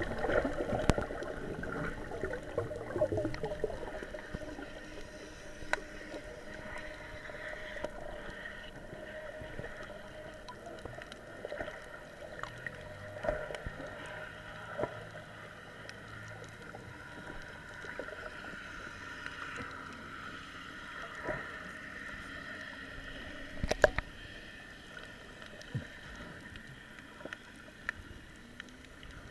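Underwater ambience heard through a submerged camera's waterproof housing: a steady, muffled wash of water movement with scattered faint clicks and one sharper knock near the end.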